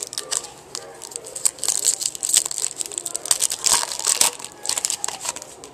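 Foil wrapper of a baseball card pack being torn open and crinkled by hands: a run of irregular crackles and rustles.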